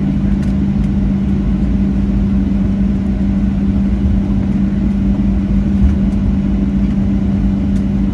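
Cabin noise inside a Boeing 737-700 airliner: a steady hum with one strong low tone over a low rumble, the sound of the engines and air system heard from a forward window seat.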